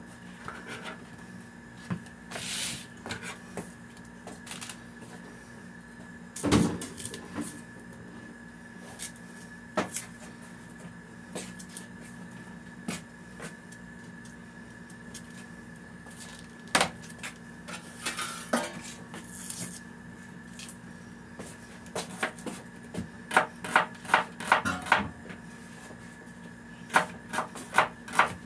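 Kitchen knife knocking on a plastic chopping board while onion is cut: scattered single knocks at first, then a run of quick chops in the last few seconds. A faint steady hum runs underneath.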